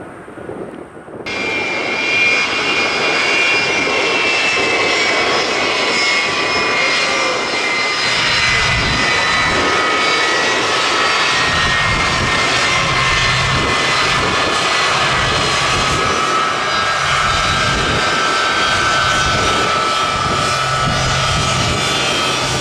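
Jet airliner's engines, loud and steady, with a high whine that slowly falls in pitch as the aircraft passes close by. The sound starts suddenly about a second in.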